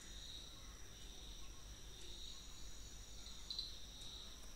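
Faint, steady chirring of crickets, high-pitched and swelling a little now and then, over a low hum.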